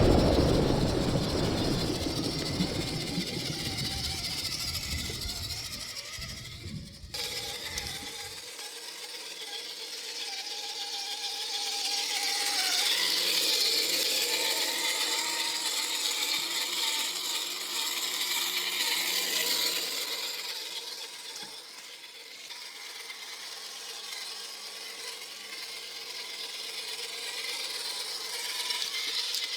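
Loud low rumble for the first several seconds, which stops abruptly. Then the electric motor and geared drivetrain of a RedCat Everest RC crawler, a steady whine with gear rattle, rising and falling in loudness as it drives.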